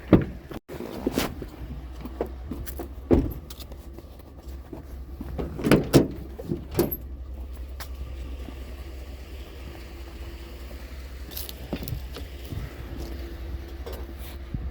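Pickup truck engine idling with a steady low hum, overlaid by several sharp knocks and rattles, the loudest near the start and around six seconds in.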